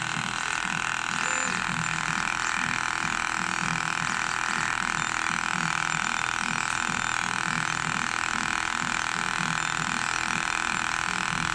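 A 3D printer with a PET flake extruder running a print: a steady whir, with a low motor hum underneath that keeps changing as the print head moves.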